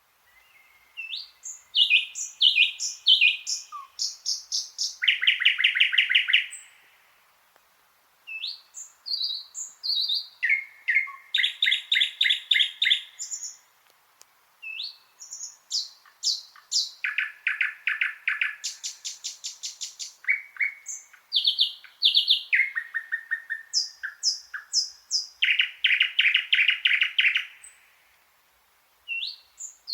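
Thrush nightingale singing: loud, long phrases built of rapidly repeated notes, clicks and rattling trills, broken by short pauses.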